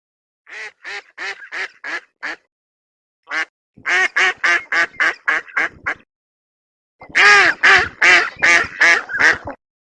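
Duck quacking in three quick runs of calls, about three quacks a second, the last run the loudest.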